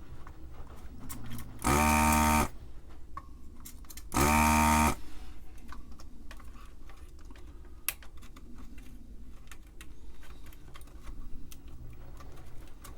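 Electric desoldering tool's vacuum pump buzzing in two short bursts of under a second each, a couple of seconds apart, sucking solder from the keyboard ribbon-cable joints. Light clicks and taps of work on the board follow.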